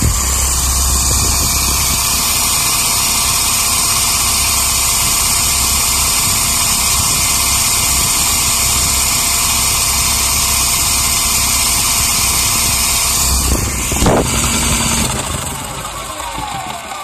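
WLtoys V913 RC helicopter's electric motor, main gear and rotor running at a steady speed, a high whine over a low throb. About thirteen seconds in, the pitch sweeps and the sound then winds down. The owner reports a ticking noise and a wobbling main gear, unsure whether the main shaft or the main gear is at fault.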